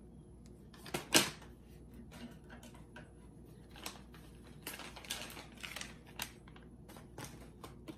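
Scattered handling noises of grocery packaging being moved: light clicks and knocks, a sharp knock about a second in, and a brief rustle of packaging around the middle.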